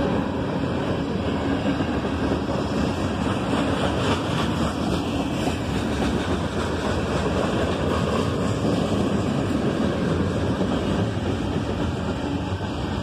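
Freight train cars, covered hoppers and tank cars, rolling steadily past on steel wheels over the rails.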